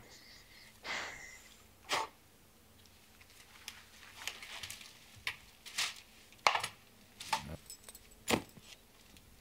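Scattered sharp clicks, knocks and rustles of a man handling things in a quiet room, including the rubber gloves he pulls on, from the TV drama's soundtrack. The loudest knocks come about six and a half and eight seconds in.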